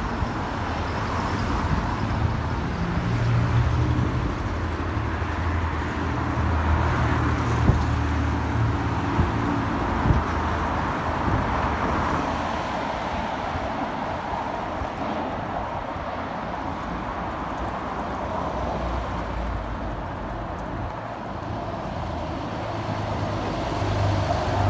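Road traffic on a town street: cars passing one after another, their engines and tyres swelling and fading over a steady background hum.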